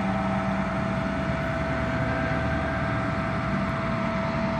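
A vehicle engine running steadily, with a constant high whine held at one pitch over it.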